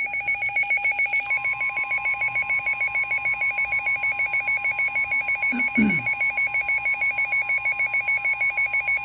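Emergency weather alert: a rapidly pulsing electronic alarm beep, joined about a second in by a steady single alert tone, the warning alarm tone that precedes a broadcast severe thunderstorm warning. A brief low falling sound cuts in about six seconds in.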